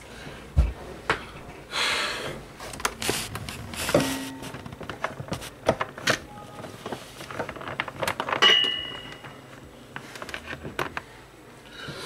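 Handling noise: a run of irregular knocks, clicks and rustles as cables and objects are moved about, with a low thump about half a second in and a short ringing clink about eight and a half seconds in.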